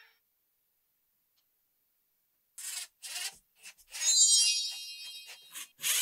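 Silence at first, then a hand screwdriver turning a screw into plywood: a run of short scraping, rubbing strokes, followed by a longer, louder rub with a high squeak about four seconds in.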